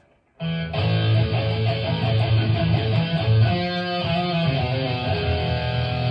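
Harley Benton Fusion-T electric guitar with EMG pickups being played, a run of picked notes and chords starting suddenly about half a second in.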